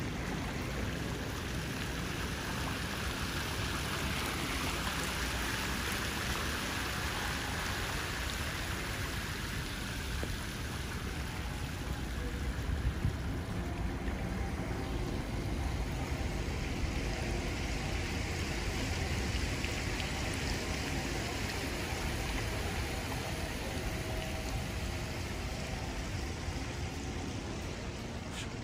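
Steady rushing outdoor background noise that swells and eases twice.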